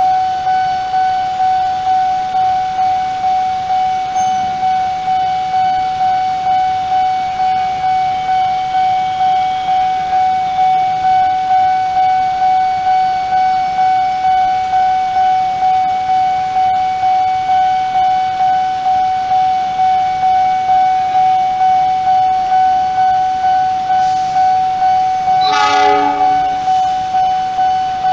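Nippon Signal electronic railway-crossing alarm ringing: a steady repeating ding, about one and a half strikes a second, which signals that the crossing is closed for an approaching train. A short horn blast sounds near the end.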